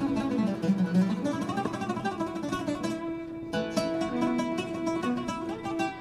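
Background music of plucked acoustic guitar, playing quick runs of notes.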